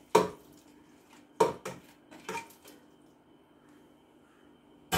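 Metal clinks and knocks on a pressure cooker pot as beef is put into it: about five short strikes, some briefly ringing, in the first three seconds, then a louder clatter right at the end.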